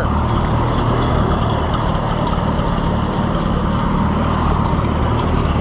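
Farm tractor engine running steadily under way, with a constant low drone.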